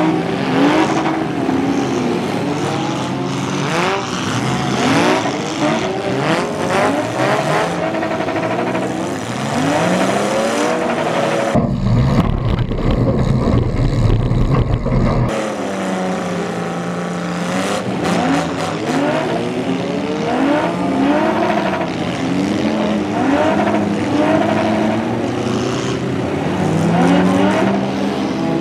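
Several demolition derby cars' engines revving and running at once, their pitch climbing and falling as the cars accelerate and back off, with occasional knocks. From about twelve to fifteen seconds in, a single engine's deep, low rumble is heard from inside a car's cabin.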